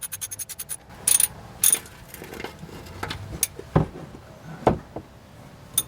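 A ratchet clicks rapidly, about a dozen clicks a second, as it turns the oil filter wrench to spin off the oil filter. The clicking stops just under a second in. After it come several separate sharp metallic clanks and knocks.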